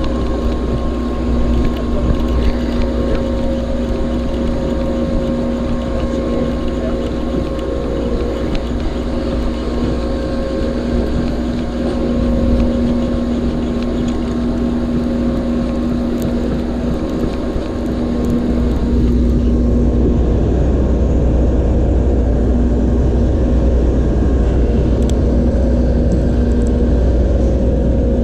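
A steady engine hum with a low rumble. It gets louder and duller about two-thirds of the way through.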